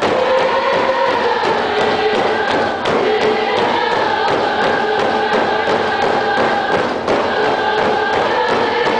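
A large group singing a Coast Salish song in unison over a steady beat on many hide frame hand drums.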